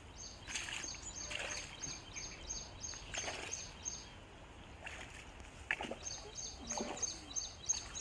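Outdoor ambience with a high, even chirp repeating about three to four times a second. It comes in two runs with a pause around the middle, and a few brief soft rustles fall between.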